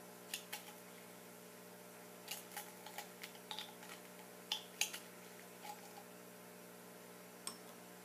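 Faint, scattered clinks of a metal spoon against a glass beaker as a liquid is stirred, some with a short glassy ring, over a low steady hum.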